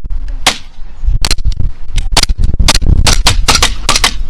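Airsoft guns firing: a single shot, then a rapid string of sharp cracks at about five a second.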